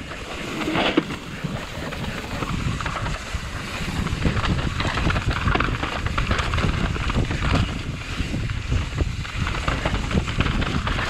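Wind buffeting the camera microphone over the rumble of mountain bike tyres rolling down a dirt trail, with irregular small rattles from the bike.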